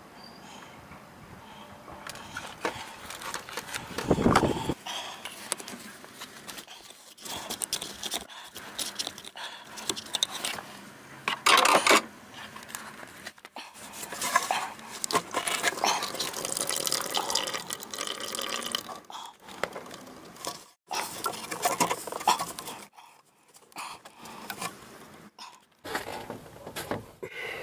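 Heater hose fittings being worked off the heater core pipes at the firewall by hand, with irregular clicks, scrapes and rubbing of rubber and plastic on metal.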